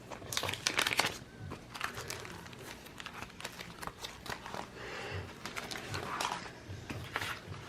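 Paper and sticker sheets rustling and crinkling as they are handled, with scattered small clicks and taps, busiest in the first second.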